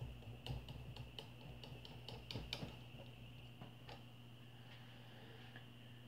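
Light, irregular clicks and taps as hands fit and adjust the end cover on an Arno electric fan motor. About a dozen ticks come in the first four seconds, then they stop.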